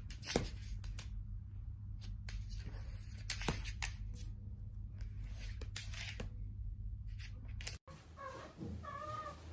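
A run of irregular sharp clicks and rustles over a steady low hum. After a sudden cut near the end, a domestic cat meows a few times.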